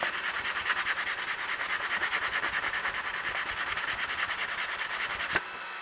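Sandpaper rubbed by hand over a laser-engraved wooden card, giving a quick sanding to the burnt engraving. Rapid, even back-and-forth scratching strokes that stop suddenly about five seconds in.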